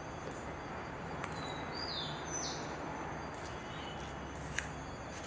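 A bird chirps twice about two seconds in: two short, high, falling notes over a steady low background hum. A single soft click comes near the end.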